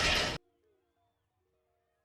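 A loud steady rushing noise that cuts off abruptly less than half a second in, leaving near silence with very faint music.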